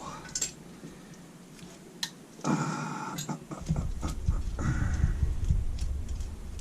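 Small metal carburettor parts and screws clicking and scraping as they are taken out and handled on the bench. There are a few sharp ticks, a busier patch of clatter about two and a half seconds in, and a low rumble of handling through the second half.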